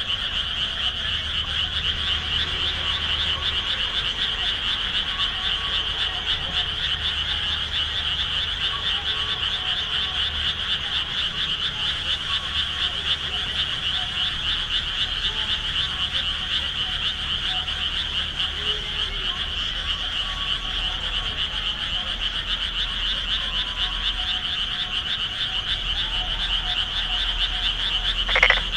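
A dense chorus of frogs calling without a break from flooded rice paddies, under a faint low hum. A brief louder sound stands out near the end.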